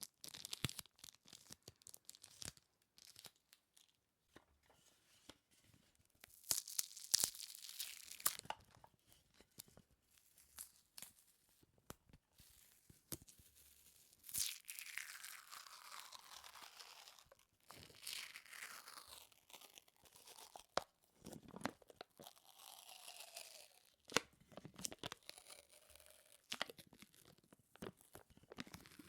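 Close-miked sticky peeling and crackling: a tacky surface pulled apart, giving many short clicks and crackles and a few longer peels whose pitch falls.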